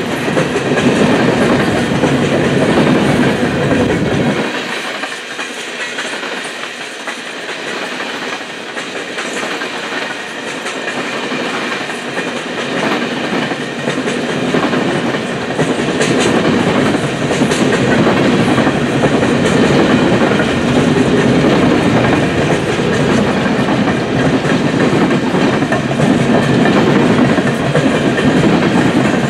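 A long string of empty coal hopper cars rolling steadily past, their wheels running on the rails with scattered clacks over the joints.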